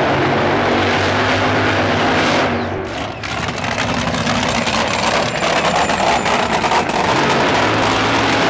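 Top Fuel dragster's supercharged nitromethane V8 at full throttle during a burnout, the rear tyres spinning and smoking. The engine sound dips briefly about three seconds in, then comes back up.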